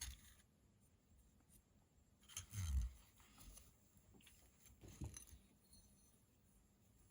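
Faint handling of a disassembled folding knife's small parts and cleaning tools: light scraping and ticking, with a soft thump about two and a half seconds in and a single sharp click about five seconds in.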